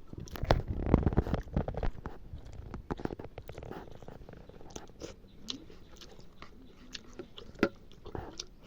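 A person chewing and biting mutton curry at close range: wet mouth smacks and sharp clicks, busiest and loudest in the first two seconds, then sparser.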